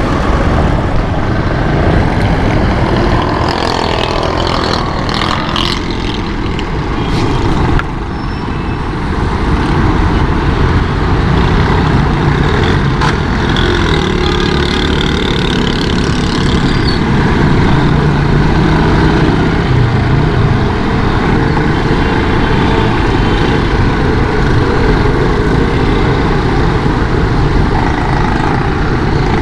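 Motorcycle riding through street traffic: a steady, loud mix of engine and road noise, with a few sharp clicks a few seconds in.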